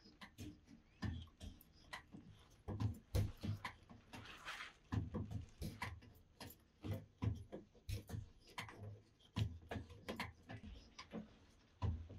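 Irregular sharp knocks and taps, a few a second, from hand-knotting a carpet on an upright loom, as the weaver's tools strike the knots and warp.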